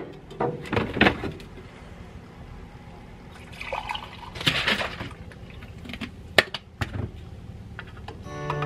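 Coffee poured from a glass carafe into a mug, a short splashing rush about four seconds in, with a few clicks and clinks as the carafe and mug are handled.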